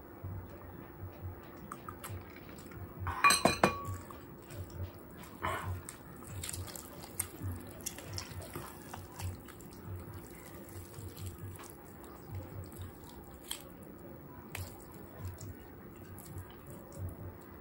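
A glass mug of iced juice clinks in a quick cluster of knocks with a short ring about three seconds in. After that come soft, wet tearing and pulling sounds with small clicks, as a whole roast chicken is torn apart by hand.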